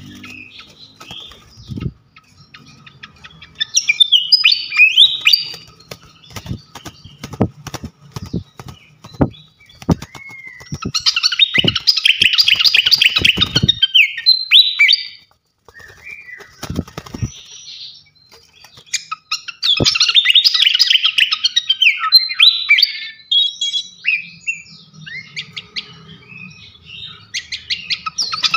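Small songbird sold as srikatan kipas singing in loud phrases of rapid, high chirps and trills, each phrase lasting a few seconds with short pauses between them. Sharp clicks are scattered through the pauses.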